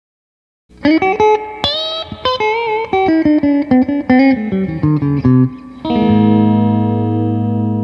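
Epiphone SL electric guitar playing a single-note lead phrase: picked notes with a string bend and vibrato, then a descending run. It ends on a low note left ringing and slowly fading.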